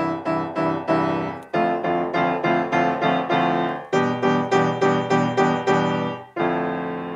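Grand piano played in repeated struck chords, about three a second, with a short break between phrases three times.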